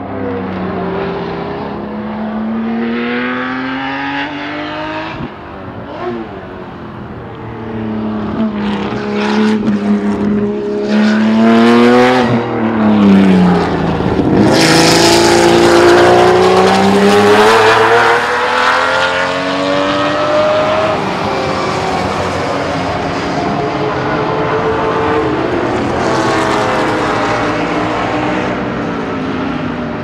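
The 1985 Bathurst-winning Jaguar XJS race car's V12 running hard through the gears. Its pitch climbs in long rises and drops back at the shifts. It is loudest as the car passes close about halfway through, then eases off as it pulls away.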